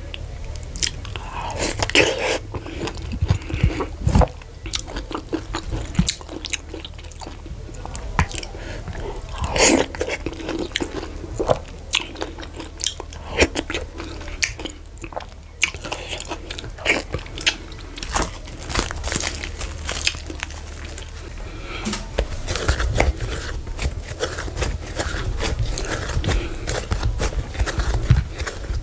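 Close-miked chewing and biting of fufu and vegetable soup with chicken, full of irregular sharp wet mouth clicks.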